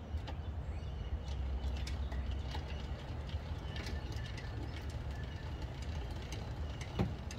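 Light metallic clicks and knocks from hooking a camper trailer's coupler onto a hitch, with one sharper clack near the end, over a steady low rumble.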